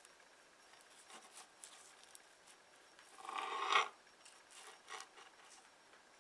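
Serrated knife cutting through chilled cheesecake and scraping on the baking paper beneath: a louder rasping scrape about three and a half seconds in, with small ticks and rustles around it.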